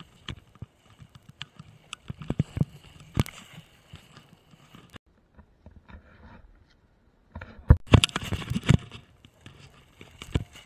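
Snowboard scraping and skidding over snow, with scattered sharp knocks on the handheld camera pole. It goes nearly quiet for a couple of seconds midway, then a loud spell of scraping and knocks comes about seven and a half seconds in.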